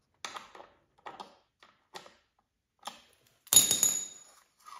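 Hand tool tightening a timing belt guide bolt on a Subaru EJ257 engine: a few scattered short clicks, then a sharper metallic clink with a ringing tone about three and a half seconds in.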